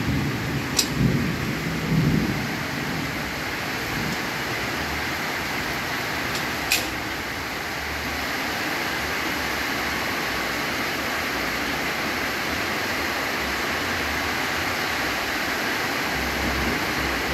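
Steady heavy rain falling during a thunderstorm, an even hiss throughout. Two sharp clicks cut through it, about a second in and again near the middle.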